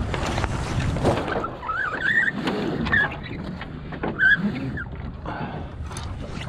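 Gaff mainsail of a small wooden sailboat being hoisted by hand: the sailcloth rustles and flaps as it goes up, with a few short high squeaks about two, three and four seconds in.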